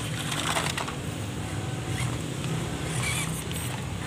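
A WPL C24 RC crawler pickup drives down a dirt slope: its small electric motor and geared drivetrain give a steady low whir, and its tyres crunch and scrape on the dry soil, with gritty crunches about half a second in and again near the end.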